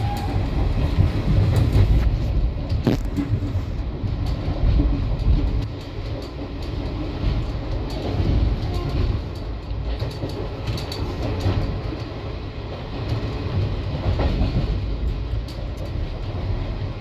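Indian Railways ICF passenger coach running at speed, heard from inside by the window: a steady low rumble with frequent irregular clacks from the wheels on the track.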